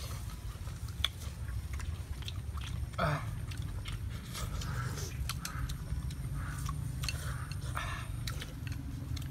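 People eating rice porridge from small bowls: chewing and slurping, with frequent light clicks of chopsticks against the bowls.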